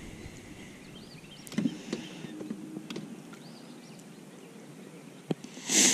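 Quiet outdoor background at the water with a few light clicks and faint high chirps, then a brief hiss near the end.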